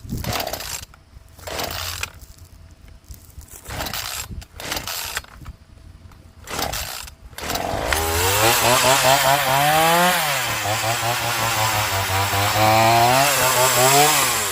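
A Ryobi two-stroke chainsaw being pull-started: a series of short tugs on the recoil cord, then about eight seconds in the engine catches and runs, its pitch rising, settling lower, then rising again before it cuts out near the end. The saw won't stay running.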